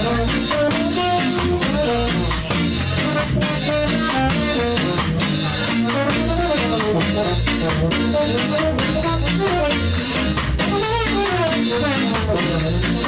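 Ska band playing live: a steady drum beat with electric guitar, bass and a horn melody over it.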